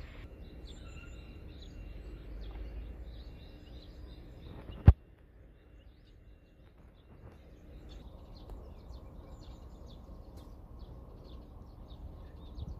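Outdoor field ambience: a steady low rumble with faint bird chirps, and one sharp click about five seconds in.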